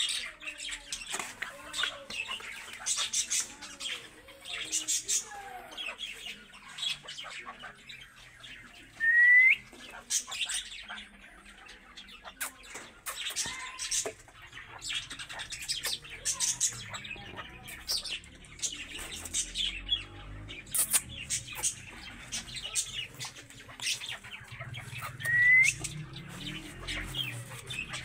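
Partridges calling: many short chirps throughout, with two loud rising calls, one about nine seconds in and one near the end.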